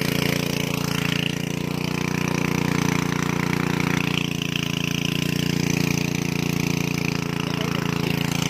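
Small engine driving a water pump, running steadily with a constant, even drone.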